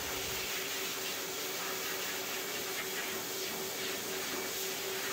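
High-velocity pet dryer blowing steadily through its hose: an even rush of air with a steady hum from the motor.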